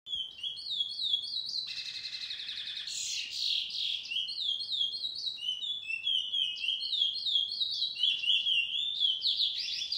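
A caged chestnut-bellied seed finch (picolet, curió) singing a long, unbroken, varied warbling song of quick high whistled phrases, with a fast buzzy trill about two seconds in.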